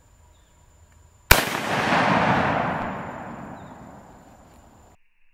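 A single shot from a Marlin 336 lever-action rifle in .30-30 Winchester: a sharp crack about a second in, followed by a long rolling echo that fades away over about three seconds.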